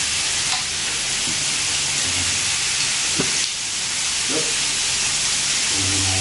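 Sliced pork belly and vegetables sizzling steadily on a hot grill pan, with a couple of light clicks from the tongs turning the meat.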